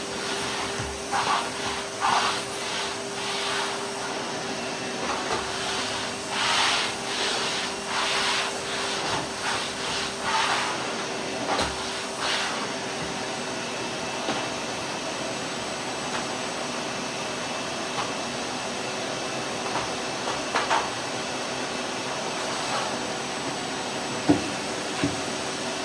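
Vacuum cleaner running steadily: a constant rushing hiss over a steady hum. Louder surges come and go through the first half, and two short knocks sound near the end.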